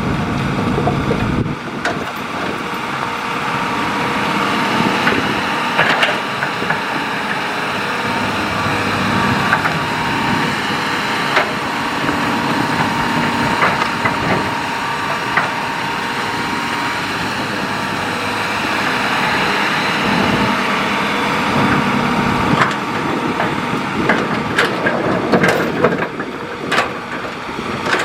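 Hitachi hydraulic excavator's diesel engine running steadily under load while its bucket digs and dumps sand and gravel fill, with rock scraping and crunching. A run of sharp clanks and knocks comes near the end.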